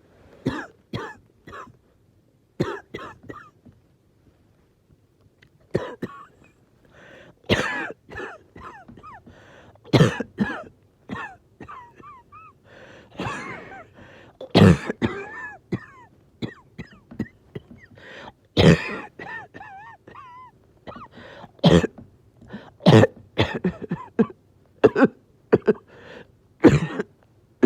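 A person's coughing fit: repeated coughs in clusters of several with only brief pauses, and wavering pitched breath sounds between them, from someone struggling to breathe.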